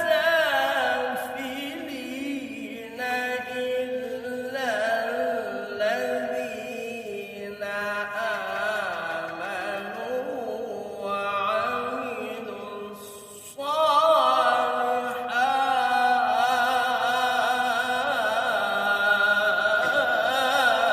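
Male voice reciting the Quran in melodic tilawah style: long, ornamented held notes with quick vibrato, in several phrases. About two-thirds of the way through, a new, louder phrase begins and is held to the end.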